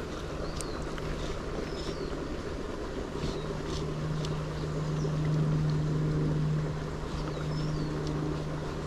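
Steady low hum and rush of road traffic from the adjacent road, with a few short high bird chirps scattered through.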